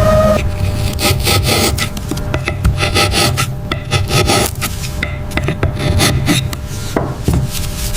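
Rapid, irregular rasping and scraping strokes, over a low steady hum.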